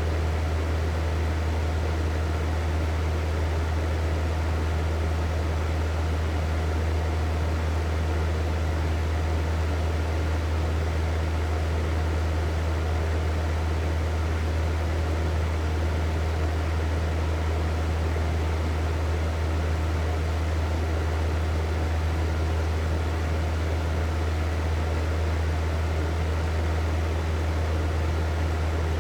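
Hair dryer running steadily: an even rushing hiss of blown air over a strong, steady low motor hum, with no change in speed or setting.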